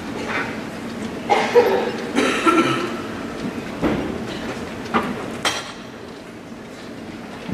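Audience and stage noise in a hall while a choir waits to sing: rustling and shuffling with a few sharp knocks and clicks and faint low voices, settling quieter near the end.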